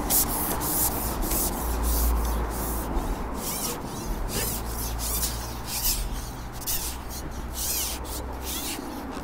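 Repeated irregular rubbing and scraping as a carbon fishing pole is handled while a hooked fish is played, over a steady low rumble.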